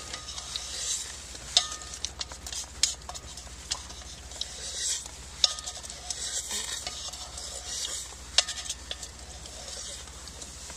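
A person slurping and sipping from a cup, with scattered small sharp clicks.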